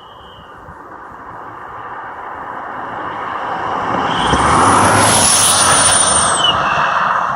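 Car with a turbo-whistle insert in its exhaust driving past: engine and road noise build as it approaches, peak about four to six seconds in with a high thin whistle over them, then fade as it moves away. The whistle dips in pitch as the car goes by.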